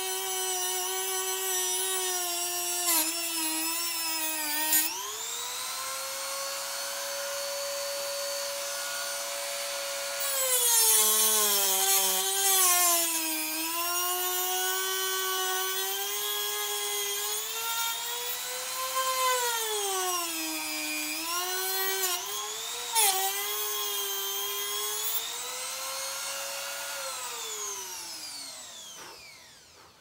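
Dremel rotary tool with a cut-off wheel cutting into an ATV tire beside the rim to get a stuck bead off. Its high motor whine sags in pitch each time the wheel bites and climbs again as it eases off, turns harsher about eleven seconds in, and spins down to a stop near the end.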